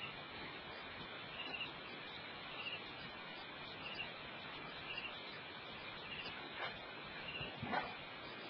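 Night ambience at a waterhole: a steady hiss with a short, high chirp repeating about once a second, and two brief louder sounds near the end.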